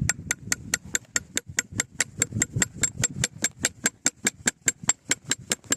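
A knife blade scraped rapidly and repeatedly against a spark-throwing metal piece, about five short, sharp scrapes a second, striking sparks onto dry tinder to light a fire.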